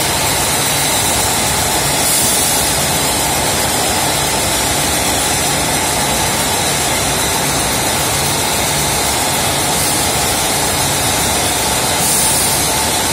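Vertical form-fill-seal packaging machine running with a steady, loud mechanical noise, bagging 2.5 kg milk packs. A short hiss rises over it about two seconds in and again near the end, about ten seconds apart.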